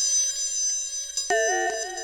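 Modular synthesizer running the 'Space Birds' patch: held electronic tones with bright overtones, then about a second in a new set of warbling, wavering tones comes in with a few clicks.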